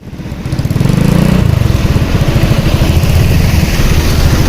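A vehicle engine running close by, with a rapid, even low pulsing. It swells in over the first half second and then holds steady.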